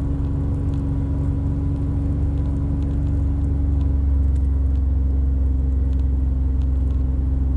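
Kawasaki Mule Pro FXT utility vehicle's three-cylinder engine running steadily under way at a constant pace, getting a little louder about halfway through.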